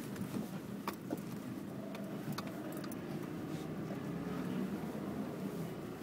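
A four-wheel drive's engine running low and its road noise heard inside the cabin as it creeps down a steep sandy track, with a few light clicks or rattles about one and two and a half seconds in.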